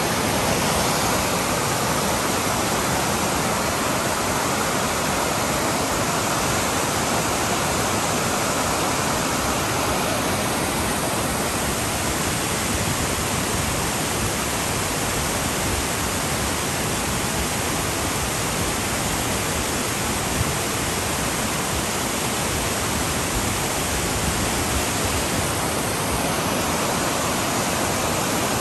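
Steady rush of a mountain creek cascading over boulders below a tall waterfall, whitewater spilling down rock steps.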